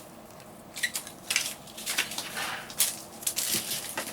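Crinkling and rustling of opened booster-pack wrappers and trading cards being gathered up and handled, in half a dozen short, irregular bursts.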